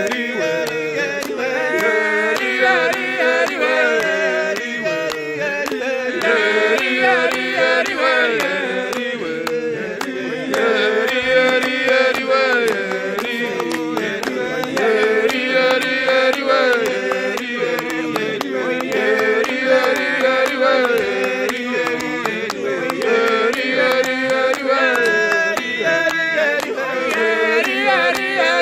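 A group of men singing a church chorus unaccompanied, several voices together in harmony, with steady hand-clapping keeping the beat.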